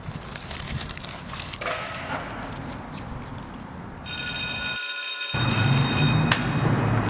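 Quiet outdoor background, then about four seconds in an electric bell starts ringing suddenly and loudly, a steady high ring lasting about two seconds, like a school bell.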